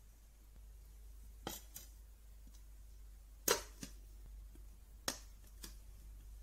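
BAFRC cheap battery spot welder firing through its handheld pen onto a 0.3 mm strip at gear 2: sharp welding snaps in three pairs, each snap followed by a smaller one a fraction of a second later, the middle pair the loudest. At this setting the welds hold firmly.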